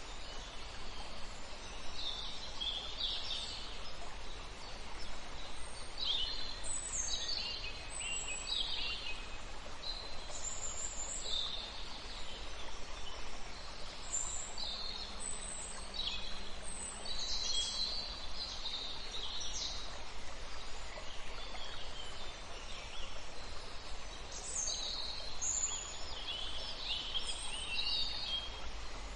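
Small birds chirping and calling in short, repeated high notes, in several clusters, over a steady hiss.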